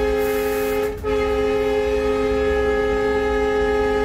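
WDG-3A diesel locomotive's air horn sounding one long several-note blast, breaking off briefly about a second in and stopping near the end, heard from inside the cab over the low rumble of the running locomotive.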